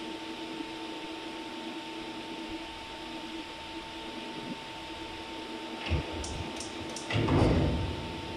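CNC metal spinning machine standing by with a steady hum and a constant tone. Its pneumatic robot loader handles a metal disc, making a thump about six seconds in, a few sharp clicks, then near the end a loud, rough rumble lasting under a second.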